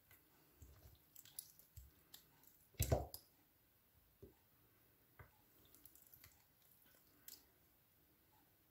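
Faint sticky squelches and small clicks of clear glossy slime as toy cars are pressed into it and pulled out, with one louder squelching thud about three seconds in.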